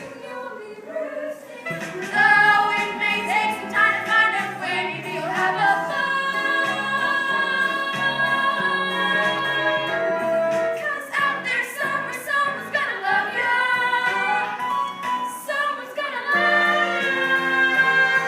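A chorus singing a musical-theatre song, many voices together, with long notes held in the middle.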